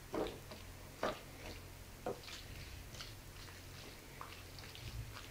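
A red-handled kitchen utensil mashing and stirring a soft, moist mix of boiled cauliflower and minced chicken in a plate: wet squishing and scraping, with three louder strokes about a second apart near the start and lighter ticks after.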